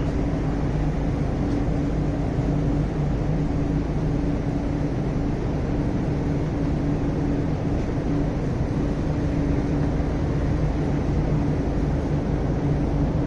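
Steady low machine hum of a potato cold store's cooling equipment, with a couple of constant low tones under an even rushing noise.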